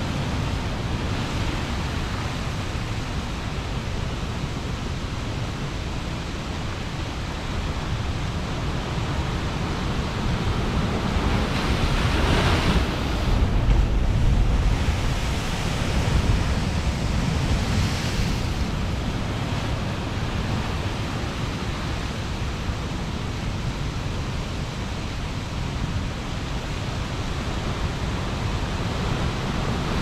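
Large ocean surf breaking against a lava-rock coast: a continuous deep rumble of water, swelling to a louder crash about twelve to fourteen seconds in and again briefly a few seconds later.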